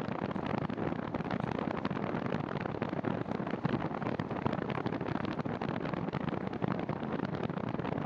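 Steady rushing noise of a bicycle in motion: wind over the handlebar-mounted camera's microphone and the tyres rolling over paved and gravel path, with a fine crackle throughout.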